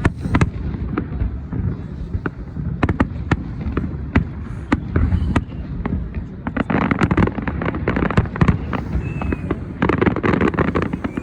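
Fireworks going off: an irregular string of sharp bangs and cracks, thickening into dense crackling about seven seconds in and again about ten seconds in.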